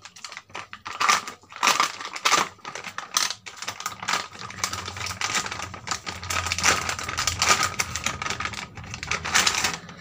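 Clear plastic packaging crinkling and rustling as it is torn open by hand, in quick irregular crackles.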